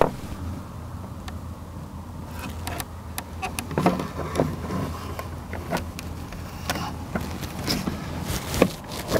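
Handling noise and footsteps: irregular clicks, knocks and scrapes of a charging cable and adapter being carried and handled, over a steady low hum.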